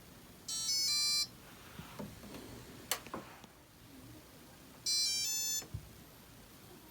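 Maytag washer and dryer control panel beeping electronically: a short run of stepped tones, then a few clicks, then a second run of stepped tones about four seconds after the first.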